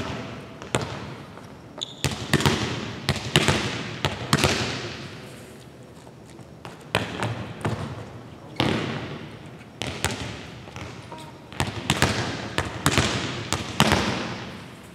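Volleyballs being served and bouncing on a hardwood gym floor: sharp slaps and bounces in clusters every few seconds, each ringing on in the echo of the large hall.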